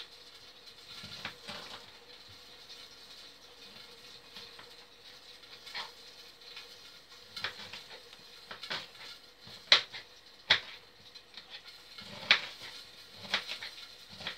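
A kitchen knife chopping cauliflower on a wooden chopping board: irregular sharp knocks as the blade meets the board, about a dozen, with short quiet gaps between.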